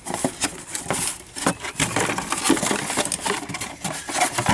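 Irregular clicks, taps and light rattles of small hard objects being handled, consistent with the plastic rocker switch panels being picked up and turned over.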